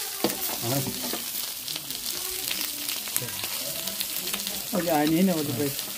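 Meat, mushrooms and halloumi sizzling on a hot barbecue hotplate: a steady crackle full of small spitting pops, with metal tongs turning the meat.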